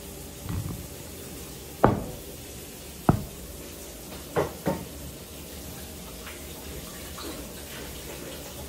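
Sharp knocks and clatter of kitchenware being handled: a few single knocks, the loudest about two seconds in, then a quick pair a little after four seconds. A steady low hum runs underneath.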